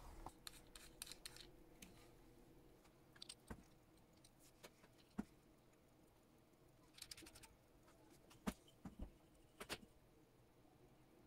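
Faint, scattered small metallic clicks and taps from a Bergeon watch-crystal press and its steel base plate being handled, as a watch crystal is set on the plate and the jawed press head is brought down over it. The taps come singly and in quick little clusters, with two sharper knocks about five and eight and a half seconds in.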